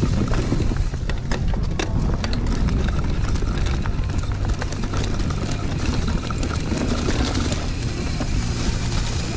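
Mountain bike descending a dirt trail: wind rushing over the camera mic, with tyre rumble and the bike's chain and frame rattling. In the first two seconds there are sharp clatters as the tyres run over the slats of a wooden bridge.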